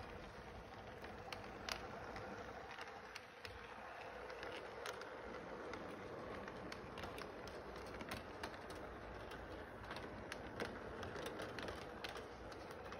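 O gauge model train running on three-rail track: a steady motor hum with many irregular clicks from the wheels over the rail joints.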